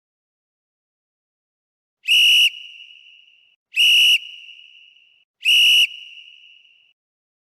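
Three sharp blasts on a whistle, each loud for about half a second and then trailing away, spaced under two seconds apart.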